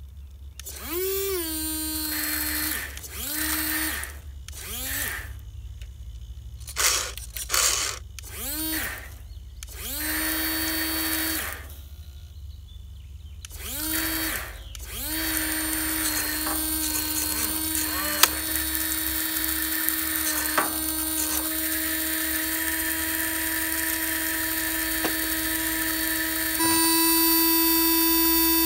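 Small electric water pump motor of a custom RC fire truck whining in short bursts, each rising quickly in pitch as it spins up. From about halfway through it runs steadily, getting a step louder near the end.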